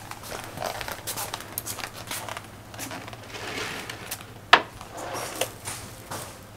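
Rustling and small clicks of someone moving inside a wooden capsule bunk and drawing its fabric curtain shut, with one sharp knock a little past halfway.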